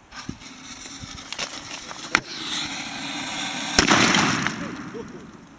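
Two-blast mortar firework going off inside an old tube television: fizzing and crackling, a sharp bang about two seconds in, then a louder second bang nearly four seconds in. A loud spray of crackling hiss follows and fades away.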